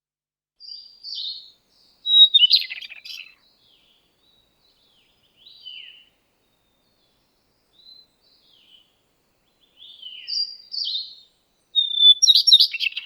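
A songbird singing two song phrases, each opening with a few high clear notes and ending in a loud jumbled flourish, one about two seconds in and the other near the end, with a few soft notes between them.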